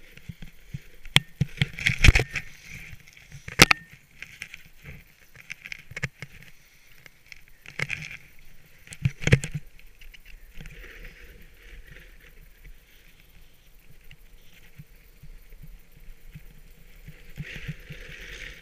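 Hiss and scrape of a rider sliding down a packed-snow slope, picked up by a helmet-mounted camera, swelling and fading with the turns. Several sharp knocks stand out, loudest about two seconds in, again around three and a half and nine seconds in.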